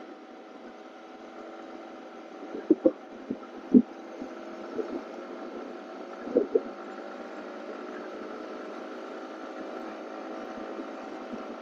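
Yamaha R15M's single-cylinder engine running at a steady cruise, heard as a steady hum. A few brief knocks come in the first half.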